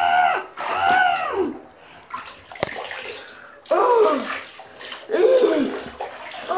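Bath water splashing and sloshing in a bathtub as a plush toy is dunked and moved through it, with several drawn-out, rising-and-falling wordless voice-like squeals over it and a single sharp click about midway.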